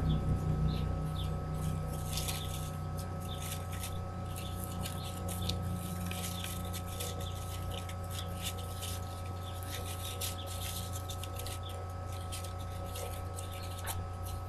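Grosgrain ribbon being folded and pinched between the fingers, rustling with many short scratchy ticks, over a steady background hum.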